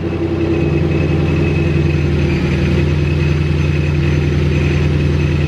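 A 2021 Ford Mustang Mach 1's 5.0-litre V8, fitted with an ESS G3 straight-cut-gear centrifugal supercharger, idling steadily in the first seconds after its first start on a new tune. The idle settles about half a second in, with a thin high steady whine running over the engine note.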